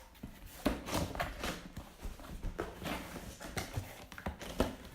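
Cardboard monitor box being handled and opened by hand: irregular knocks, taps and scraping rustles of cardboard and packing.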